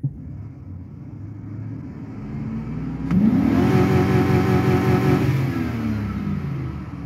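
A four-wheel-drive vehicle's engine is revved from idle. About three seconds in it jumps to high revs, around 5,500 rpm, and is held steady against the rev limiter for about two seconds, then falls back toward idle near the end.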